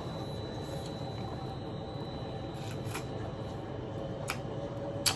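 Eating chicken wings from a takeout box in a plastic bag: a few short clicks and crinkles of handling and eating, the loudest near the end, over a steady background hum.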